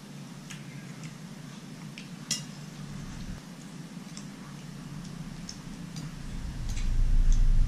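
Spoons and forks clinking and scraping on plates as people eat: scattered light clinks, one sharper clink about two seconds in. A low rumble swells over the last couple of seconds.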